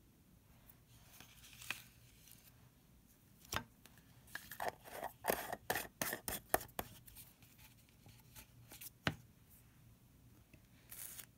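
Small plastic containers handled on a tabletop: a sharp click, then a run of quick plastic clicks and scrapes as a white screw-top lid is fitted onto a small jar, and another single click later.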